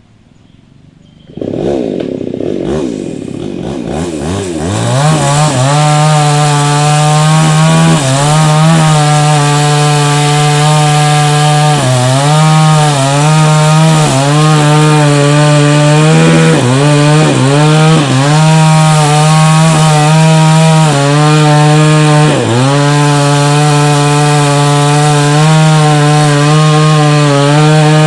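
Chainsaw starting up about a second and a half in, climbing to full speed over a few seconds, then running flat out while cutting into a tree trunk. Its pitch briefly sags every few seconds.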